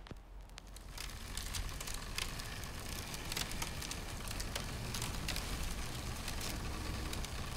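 Ice and frost on spruce branches crackling and ticking, with many small sharp clicks over a low steady rumble, starting about a second in.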